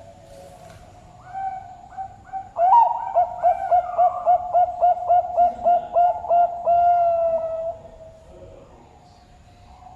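Zebra dove (perkutut) cooing its song: a few opening notes, then a rapid series of about a dozen short coos at roughly three a second, ending in one long drawn-out note.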